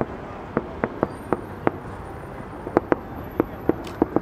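Fireworks display heard from a distance: irregular sharp bangs, two or three a second, with a pause of about a second in the middle, over a steady background noise.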